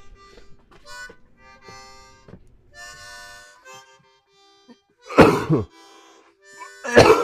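Music of short held notes, then two loud coughs about five and seven seconds in.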